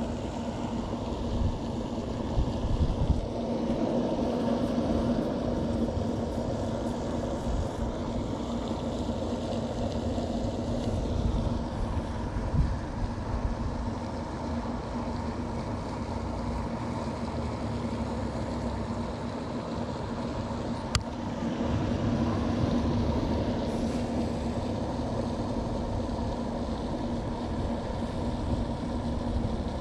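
Wind rumbling against the microphone over a steady background hum that holds a constant low tone. A single sharp click comes about two-thirds of the way through.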